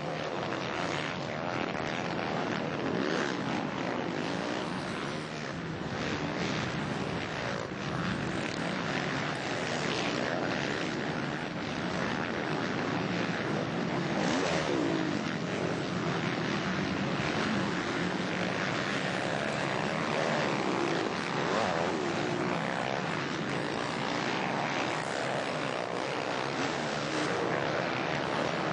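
Four-stroke motocross motorcycle engines running hard, revving up and down, with the sound held loud and steady throughout.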